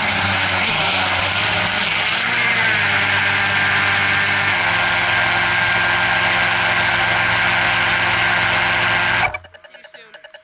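Quadcopter drone's electric motors and propellers whirring steadily, their pitch wavering in the first few seconds and then holding steady. The sound cuts off suddenly near the end.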